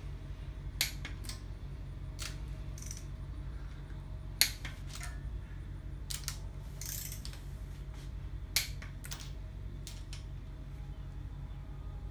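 Torque wrench and socket clicking on the cylinder-head stud nuts of an LS V8 as they are tightened to the first 30 ft-lb stage: about a dozen short, sharp metallic clicks at irregular spacing, the loudest about four and a half seconds in, over a steady low hum.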